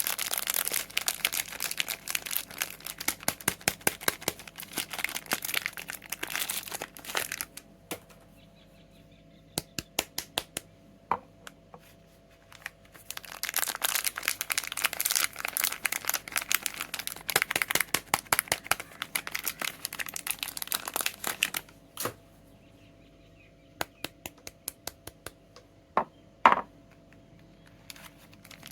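Soap packaging being unwrapped by hand: plastic wrap and paper crinkling and tearing in two long stretches, with scattered single crackles and a few sharp snaps between them.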